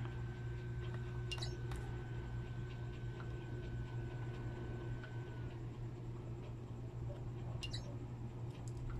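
A few light, sharp clicks of metal tweezers against a phone's display frame, two close together about a second and a half in and two more near the end, over a steady low hum. A faint high tone stops about five seconds in.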